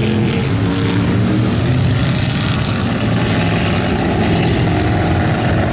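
Lifted pickup mud truck's engine running steadily under load as it drives through a deep mud pit.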